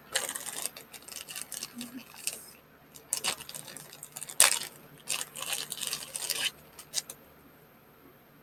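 Steel chain of a pocket chainsaw clinking and rattling as it is handled, in irregular bursts of metallic jingling that die away about seven seconds in.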